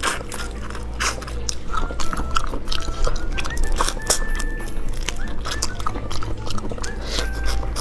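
Close-up biting and chewing of raw soy-marinated shrimp: a run of short, sharp crunchy clicks as the shells crack and the meat is sucked out.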